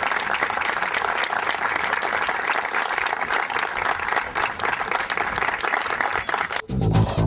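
An audience applauding steadily. Near the end the applause cuts off suddenly and electronic music with a steady beat starts.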